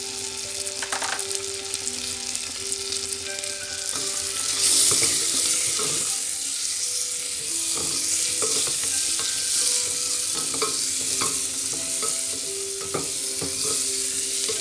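Sliced onions and garlic sizzling in melted butter in an aluminium pressure cooker. The sizzle grows louder about four and a half seconds in. From about halfway a spatula scrapes and taps against the pan every half second to a second as the onions are stirred.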